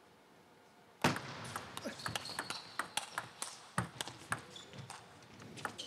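Table tennis rally: about a second of near silence, then the serve and a fast exchange of sharp, quick clicks as the plastic ball strikes the bats and the table.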